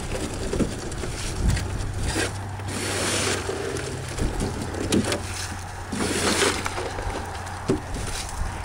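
Live crawfish being scooped out of a boat's hull with a plastic container and dumped into a plastic basket: a rustling, clattering rush of shells about every three seconds, with scattered clicks between scoops and a low wind rumble on the microphone.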